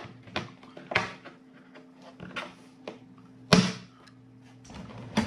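Metal screwdriver bits and an extension being handled and set into a molded plastic bit case: a string of irregular clicks and knocks, the loudest about three and a half seconds in, over a low steady hum.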